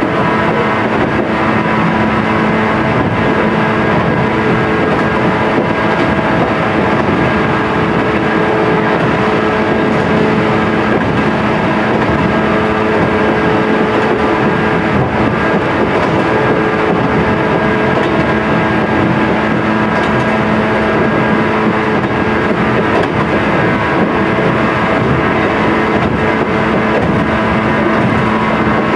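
Running sound inside a JR East 107 series electric train's motor car, KuMoHa 107-115: the MT54 traction motors and gears hum in steady tones over the wheels' noise on the rails, at an even speed.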